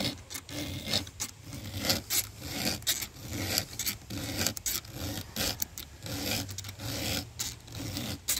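Round chainsaw file rasping across the cutters of a chainsaw chain in quick repeated strokes, about two to three a second: hand-sharpening the chain, reshaping the cutters to a 10-degree filing angle.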